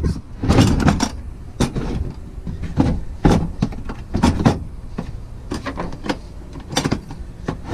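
Hard plastic tool cases being handled and shifted against each other: an irregular run of clunks, knocks and scrapes.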